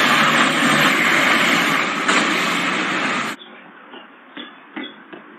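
Flatbed crane truck running, a loud steady rushing noise that cuts off suddenly about three seconds in, leaving a faint hiss with a few soft ticks.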